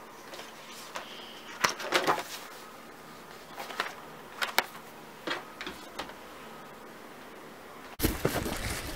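Light knocks and rustles of painting supplies being handled on a wooden table, a dozen or so short taps spread over several seconds. About a second before the end, footsteps start crunching on beach pebbles, louder and denser.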